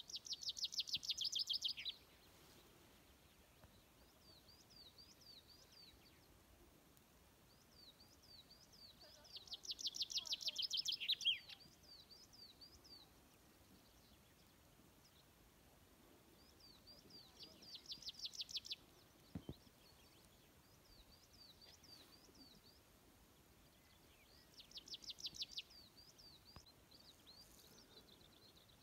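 A small songbird singing: a fast trill of high notes lasting about two seconds, given four times at intervals of seven to nine seconds. Fainter series of repeated high call notes fill the gaps between the trills.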